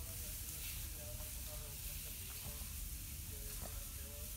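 Boston terrier whimpering faintly in pain: short, thin, high notes every half second or so, over a steady background hiss.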